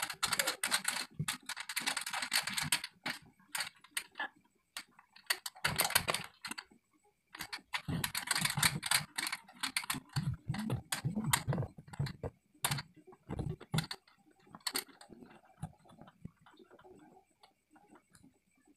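Handling noise from cables and connectors being hooked up to a power amplifier: irregular clicks, taps and short rustling scrapes, sparser toward the end.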